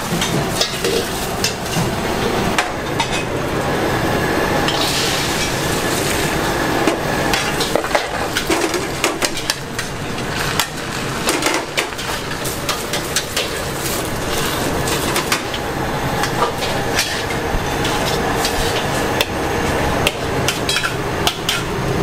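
Metal spatula scraping and clanking against a wok, many sharp irregular clanks over steady kitchen noise, as an egg-wrapped pad thai is folded and turned out.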